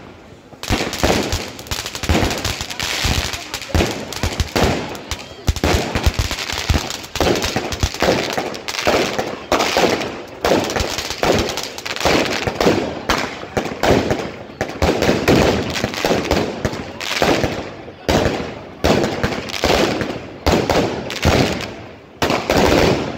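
Fireworks going off in a dense barrage: overlapping bangs and crackles, several a second, without a break.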